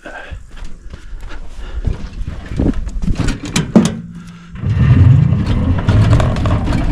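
Kuba GL 1800 MAX cargo tricycle riding over a bumpy dirt track: knocks and rattles from the body and cargo bed. From about four and a half seconds in, a loud low rumble sets in as the ride goes on.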